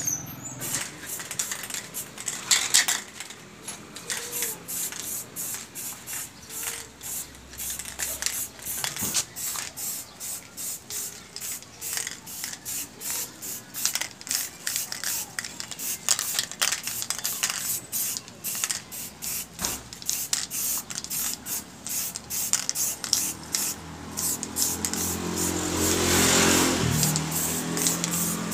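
Aerosol spray-paint can hissing in many short bursts as a metal frame is painted. A low engine drone swells and fades near the end.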